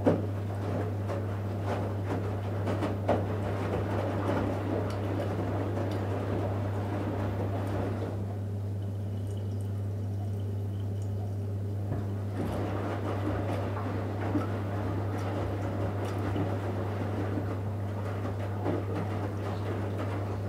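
Electrolux EWF 16589 W front-loading washing machine in the wash phase of a 60 °C cotton programme, its drum tumbling wet laundry with water sloshing over a steady hum. Partway through, the tumbling stops for a few seconds, then starts again.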